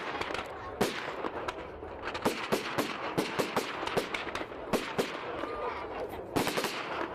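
Fireworks display going off: a rapid, irregular string of sharp bangs, several a second at times.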